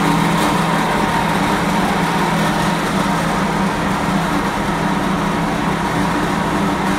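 An engine idling steadily, a continuous low hum with a fainter steady higher tone over it.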